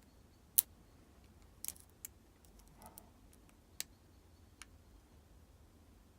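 Faint, irregular metallic clicks of a lock pick and tension wrench working the pins inside a Lockwood padlock, a handful of separate ticks spaced unevenly.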